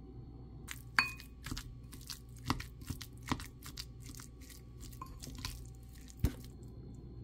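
Two wooden spoons mixing mashed pumpkin salad with mayonnaise in a glass bowl. Soft squelching and scraping comes with irregular clicks of wood against the glass; the loudest click, about a second in, rings briefly.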